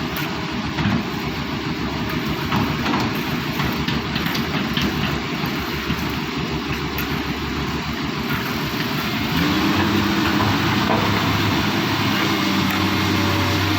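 Excavator running with a rough mechanical rattle and clatter; about two thirds of the way through the engine note rises into a louder, steady drone, as the machine comes under load.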